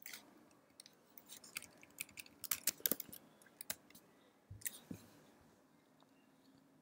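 Typing on a computer keyboard: a run of quick key clicks, densest about two and a half to three seconds in, then a few scattered keystrokes around four and a half to five seconds.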